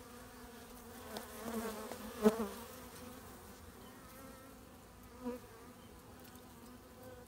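Honeybees buzzing over an open hive: a faint, steady colony hum, swelling louder a couple of times around two seconds in and briefly again near five seconds.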